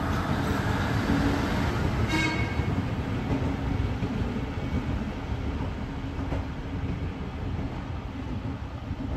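NSW 620/720 class diesel railcar set moving off, wheels rumbling on the track and engine running, slowly fading as it goes. A brief high-pitched squeal about two seconds in.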